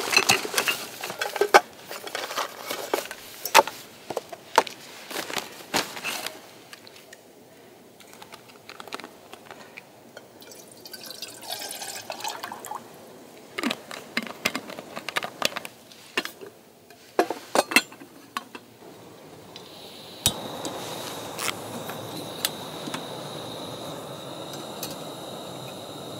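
A paper bag rustles and crinkles, then water is poured from a bottle into an aluminium kettle, with a few knocks of gear being handled. About twenty seconds in comes a sharp click, and a Primus canister gas stove's burner then hisses steadily.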